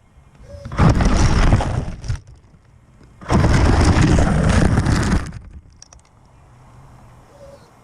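Electric Traxxas Summit 1/10-scale RC truck driving in two bursts, about a second and a half and then two seconds long: its motor, gears and tyres heard as a rough, noisy rumble through the camera mounted on the truck, quiet in between and afterwards.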